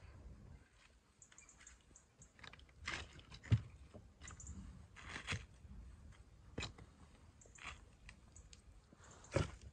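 Dry sticks and split logs knocking and scraping against one another and the earth as they are stacked upright in a pit for a fire, in scattered crisp knocks and crackles, the loudest about three and a half seconds in.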